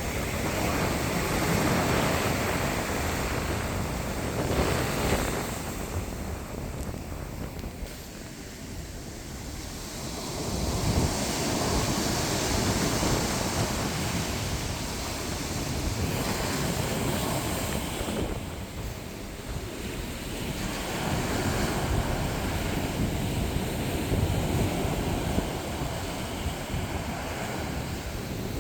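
Sea waves breaking on the shore: a continuous wash of surf that swells and ebbs, each wave rising over a few seconds and then fading back.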